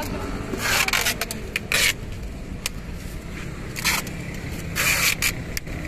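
Packing tape being pulled off the roll in four short rasping rips as a cardboard box is taped shut.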